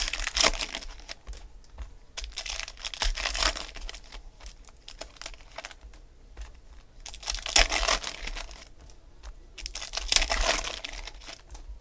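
Foil wrappers of Panini Select football card packs crinkling and tearing open in several bursts, with small clicks and slaps of cards being flipped and stacked in between.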